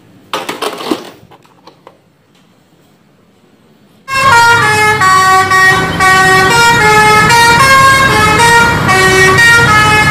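Indonesian tour bus's multi-tone musical 'telolet' horn playing a quick run of changing notes over the bus engine's low rumble, starting suddenly about four seconds in. Before it, a brief clatter of plastic toy vehicles being handled.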